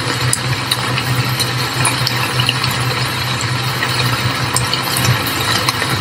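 Steady rain and spray on window glass: an even hiss with scattered small drop ticks, over a constant low hum.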